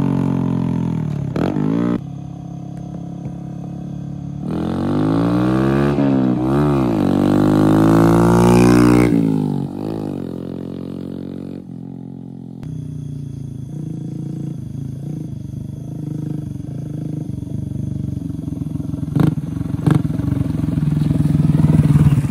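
Honda Grom's 125 cc single-cylinder engine revving and running as the small motorcycle rides by, its pitch climbing and falling with the throttle again and again across several cut-together clips. It gets louder and close near the end, with two sharp clicks just before.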